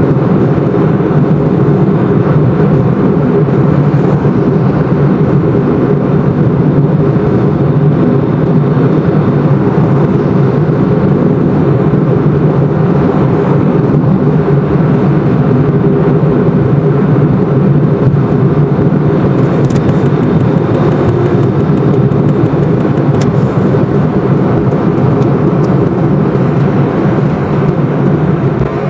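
Steady low rumble of a car driving at highway speed, heard from inside the cabin, easing slightly near the end as the car slows onto an exit ramp.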